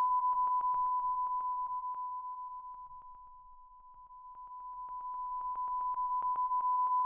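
Steady test tone from a studio monitor speaker, picked up by a Shure KSM137 cardioid microphone as it turns away from the speaker and back, with a fast, even pulse through it. The tone fades gradually to its quietest about halfway through, where the cardioid mic is least sensitive to sound from behind, then grows louder again.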